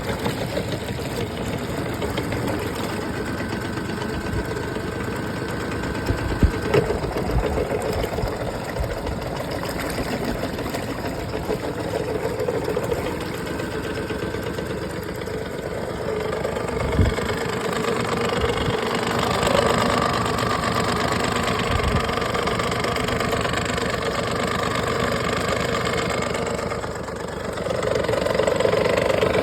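Honda BF30 outboard motor running at a steady idle, with a few sharp knocks here and there; this is the strange sound its owner is showing. It gets a little louder about two-thirds of the way in and again near the end.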